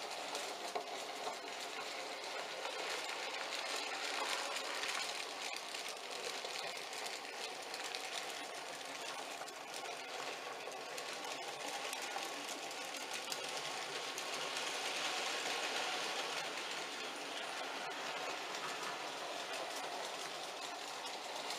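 N gauge model train running on the layout: a steady small-motor whir with fast, fine clicking of the wheels over the track, swelling and easing slightly as it moves.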